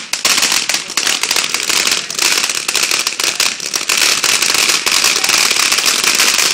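Consumer fireworks going off with dense, continuous crackling: rapid sharp pops packed together without a break.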